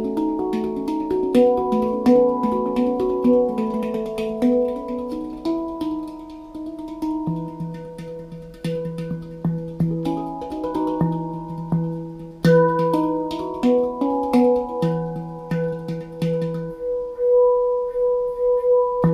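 Ayasa handpan tuned to a Sabye scale in E, played with the fingers: a quick flowing pattern of ringing, sustained steel notes, with light fingertip taps between them. A deep low note joins the pattern about seven seconds in and keeps coming back.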